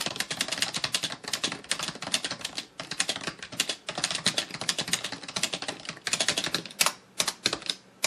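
Fast typing on an Azio Levetron L70 membrane (rubber-dome) gaming keyboard: a rapid, uneven stream of key clicks, thinning to a few separate keystrokes near the end.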